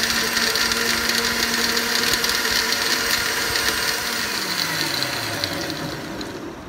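Electric countertop blender (a National Juicer/Blender) running, blending chunks of fruit, spinach and water into a smoothie. Its motor runs steadily, then its hum falls in pitch and the sound eases off toward the end.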